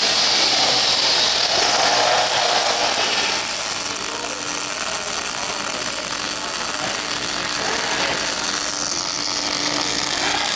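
Electric arc welding on metal plate: the welding arc burning steadily without a break.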